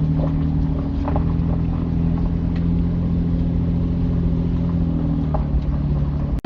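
Vehicle engine running steadily at an even speed while driving a rough trail, with a few faint knocks and rattles; it cuts off abruptly near the end.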